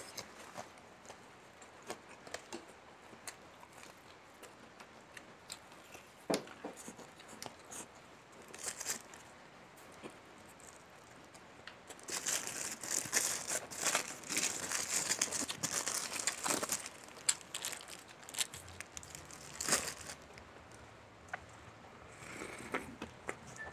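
Close-up eating sounds of crispy fried chicken: small bites and mouth clicks. About halfway in, a paper food wrapper crinkles loudly for several seconds as a paper-wrapped serving of rice is opened.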